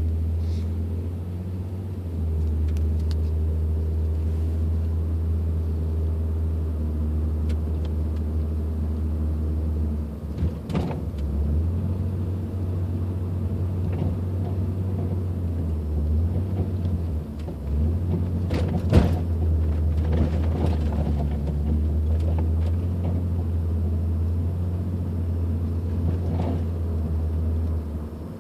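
A 2002 Nissan Maxima driving with a steady low rumble, and a few sharp knocks from the rear of the car, the loudest about two-thirds of the way through.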